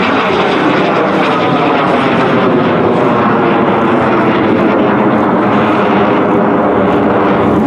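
Aermacchi MB-339 jet's Rolls-Royce Viper turbojet heard in flight as the aircraft climbs steeply: a loud, steady jet rush with a slowly wavering tone.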